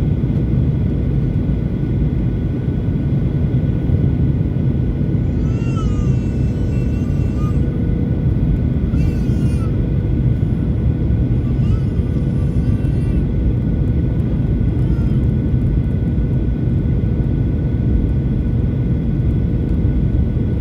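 Steady low roar inside an airliner cabin during descent before landing: engine and rushing-air noise with a few faint, even hums over it.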